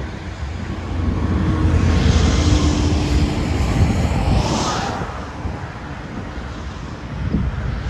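Several BNSF diesel-electric freight locomotives working under load, a deep steady engine rumble that swells from about one to five seconds in. A rush of hiss rides over it from about two seconds in and cuts off just before five seconds.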